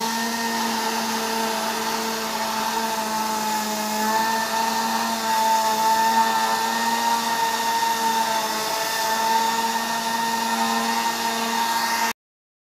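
Small motor-driven fan of a homemade mini cooler running steadily: a hum with a slightly wavering pitch over an airy hiss, cutting off abruptly near the end.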